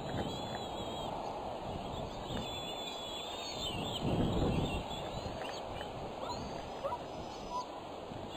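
Young bald eagles giving repeated thin, high chittering calls while an adult stands over food among them, typical food-begging. Under the calls is a steady low rushing noise that swells about four seconds in.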